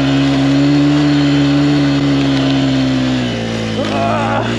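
Dirt bike engine running at steady revs, then settling to a slightly lower pitch about three seconds in.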